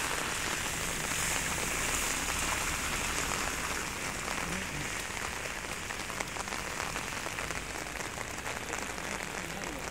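Steady rain falling on wet pavement, an even hiss sprinkled with fine drop ticks.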